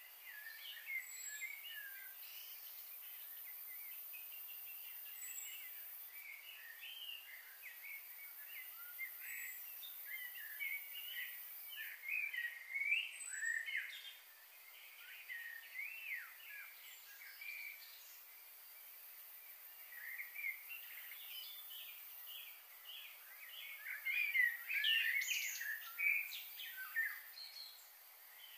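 Songbirds chirping and calling, a dense run of quick, overlapping chirps that thickens about halfway through and again near the end.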